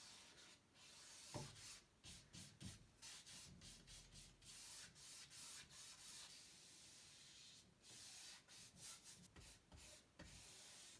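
Faint rubbing and scraping of painting tools working oil paint and gel medium, in short strokes with pauses, with a few soft knocks.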